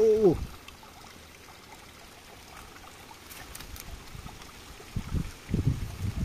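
Faint trickling of water beside a fish pond, with a few soft clicks, after a voice trails off at the start. Louder handling or voice sounds return near the end.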